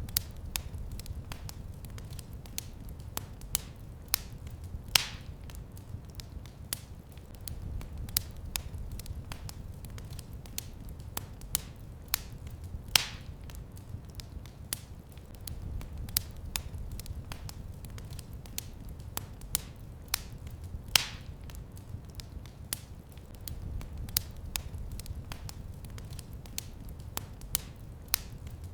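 Wood fire crackling in a fireplace: a constant scatter of small sharp crackles over a low steady rumble, with a louder pop about every eight seconds.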